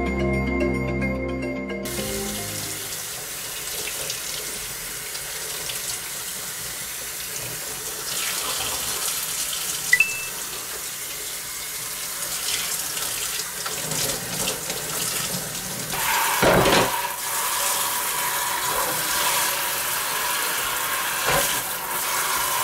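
Kitchen tap running into a stainless-steel sink, the stream splashing over a fish being rinsed by hand. A short piece of music ends about two seconds in.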